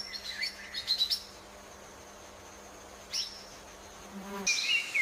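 Small bird chirping: quick high chirps in clusters, a single falling note about three seconds in, and a louder run of calls near the end, over a faint low hum that stops just before them.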